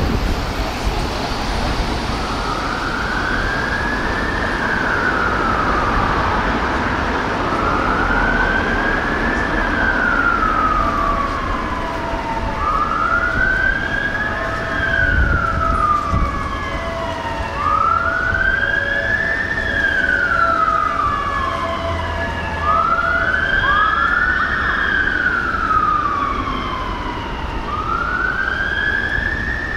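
London Fire Brigade fire engine sirens on a slow wail, each sweep rising quickly and falling slowly, about one every five seconds, beginning a couple of seconds in. Near the end a second siren sweeps out of step with the first, over steady traffic noise.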